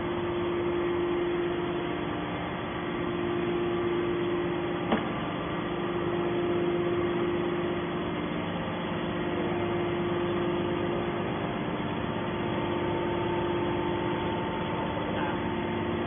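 Hydraulic scrap metal baler's power unit running steadily, its electric motor and pump giving a constant hum, with a single sharp click about five seconds in.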